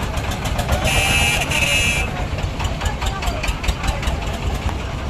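A heavy goods vehicle's diesel engine running with a quick, even knocking beat. A high horn sounds twice in quick succession about a second in.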